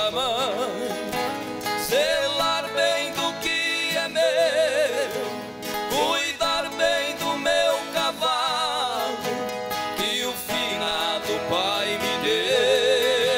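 Live sertanejo duo singing together with vibrato, the two voices moving in parallel, over strummed acoustic guitars.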